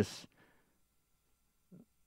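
A man's voice finishes a word with a hissy "st", then a pause of room quiet, broken near the end by one faint short sound from the speaker.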